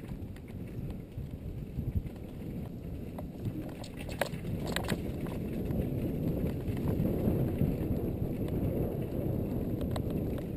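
Mountain bike riding fast down a dirt singletrack: a steady low rumble of wind and trail noise on the on-board camera microphone, with the bike rattling over the bumps and a couple of sharp knocks near the middle.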